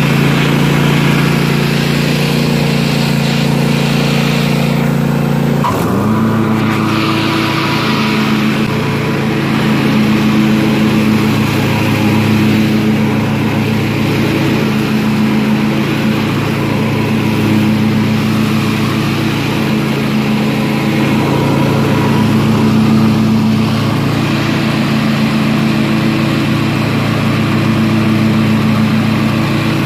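Craftsman T7800 lawn tractor engine running steadily while the tractor is driven. About six seconds in the engine note shifts suddenly, then runs on with a slightly wavering speed.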